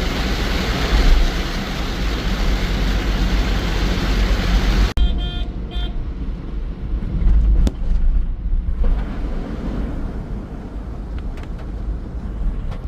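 Heavy rain hissing steadily for about five seconds, then an abrupt change to road traffic: a car horn honks a few short times and vehicles run by on the road.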